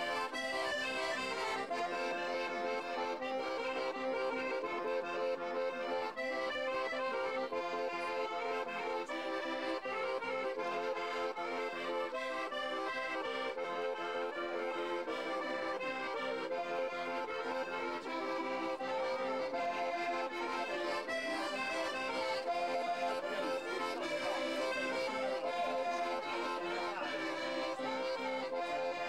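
Accordion playing a traditional folk dance tune: a quick-moving melody over one steady held note.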